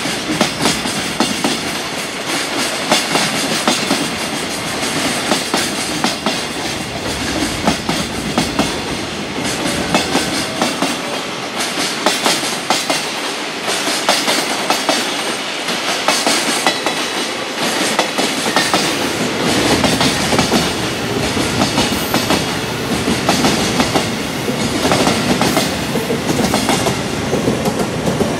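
Long freight train passing at speed, its wagon wheels clattering in a steady, dense run of clicks over the rail joints.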